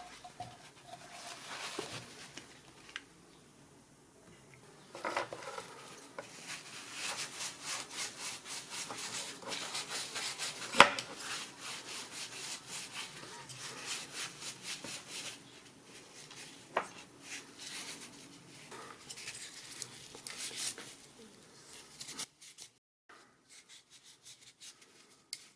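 A cloth with solvent rubbed over the plastic parts of a PC power-supply fan in quick, repeated wiping strokes, cleaning off old grease and dust, with one sharp tap about eleven seconds in.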